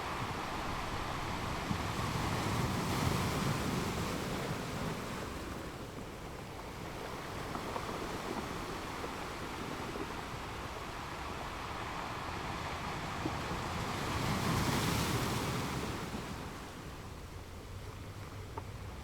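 Sea waves washing, with wind, in a steady rushing that swells louder twice, a few seconds in and again near the end.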